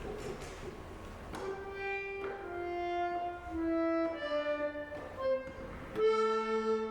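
Instrumental song intro: a slow melody of long held notes, played one after another, begins about a second and a half in and ends on a long held note.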